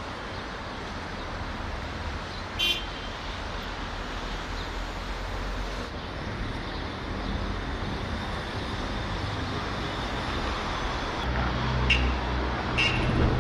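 Road traffic: a steady hiss and rumble of vehicles driving past. A short horn toot comes about two and a half seconds in and two more near the end, as a lower engine drone grows louder.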